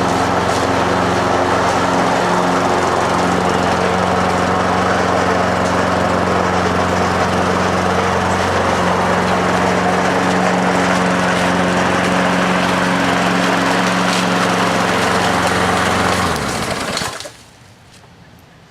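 Craftsman 6.75 hp walk-behind mower's four-stroke single-cylinder engine running at a steady speed, then shut off about 16 seconds in and spinning down within a second.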